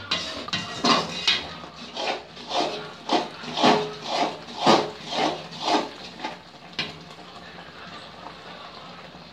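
Metal ladle scraping and knocking around an aluminium kadai, stirring the wet coconut, sugar and ghee mixture about twice a second. The strokes stop about seven seconds in.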